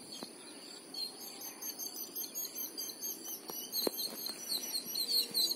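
Insects trilling steadily in high tones, with birds chirping in short repeated notes that grow louder near the end, and a single soft knock about four seconds in.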